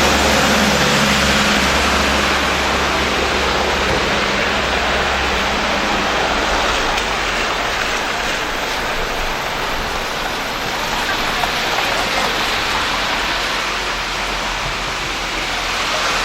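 Hailstorm: hail and rain falling hard, a steady dense hiss. A low engine-like hum underneath fades out about four seconds in.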